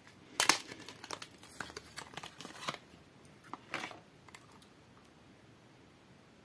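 Packaging of an Avon pressed-powder compact being handled and opened: a run of sharp clicks and crinkling rustles, loudest about half a second in, dying away after about four seconds.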